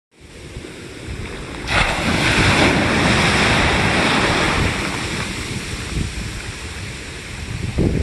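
Small ocean waves breaking in shallow surf close by. A rush of whitewash comes in sharply about two seconds in, hisses for a few seconds and fades, with wind buffeting the microphone underneath.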